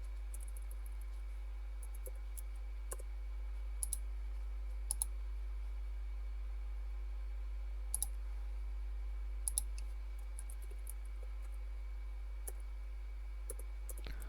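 Scattered clicks of a computer mouse, several in quick pairs like double-clicks, over a steady low hum.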